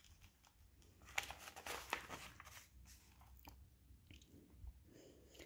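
Paper page of a picture book being turned and flattened by hand: a second and a half of crackly rustling about a second in, then a few faint ticks.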